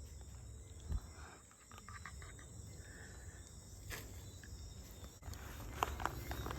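Faint night insects chirring steadily over a low rumble, with a few scattered clicks and rustles that grow busier from about five seconds in.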